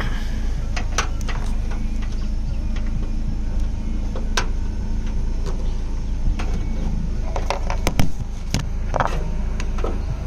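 Clicks and rustles of a rear dash-cam camera's cable and plug being handled against plastic car trim, with a sharper knock about eight seconds in, over a steady low hum.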